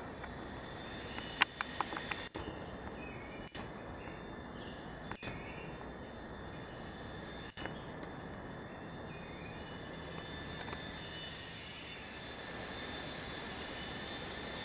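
Steady forest ambience with insects droning, and a short cluster of sharp clicks about one and a half to two seconds in.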